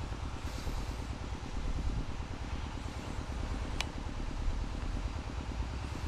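A low, steady engine rumble with a fast even pulse, and a single sharp click about four seconds in.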